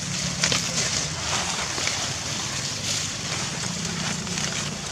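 Dry leaves rustling and crackling in short bursts as a macaque forages in leaf litter, over a low steady hum.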